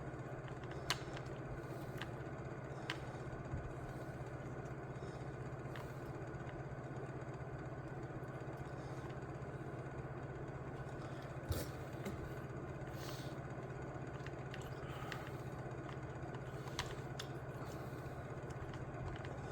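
A steady low hum with a few light, sharp clicks from small hand tools working on the RC truck's slipper clutch, including one about eleven seconds in.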